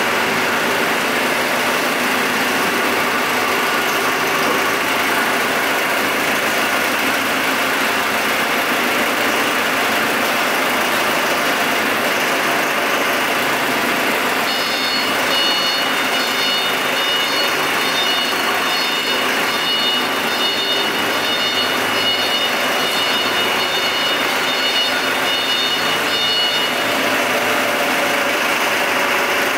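Forklift engine running steadily. About halfway through, a high steady tone joins it and stops a few seconds before the end.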